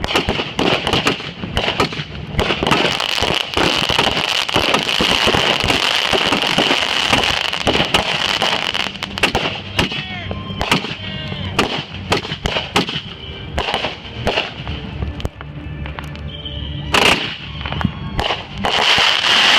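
Consumer fireworks going off in a dense barrage of sharp bangs and crackles, with a steady high whistle through the first half. Short gliding whistles come around the middle, and heavier bursts come near the end.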